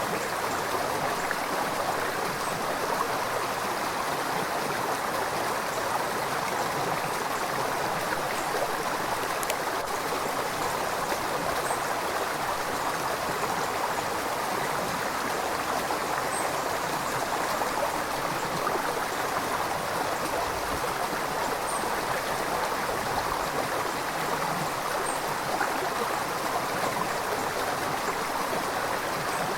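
River water flowing and gurgling in a steady, unbroken rush.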